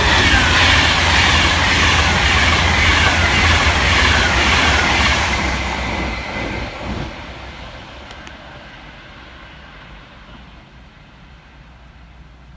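Class 390 Pendolino electric express train passing through the station at speed, loud with a falling whine for about six seconds, then fading away into the distance.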